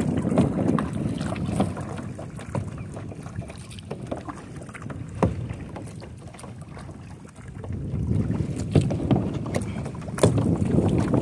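Double-bladed kayak paddle dipping and splashing in the water stroke after stroke, with scattered drips and small knocks, over wind rumbling on the microphone. It grows quieter in the middle and louder again near the end.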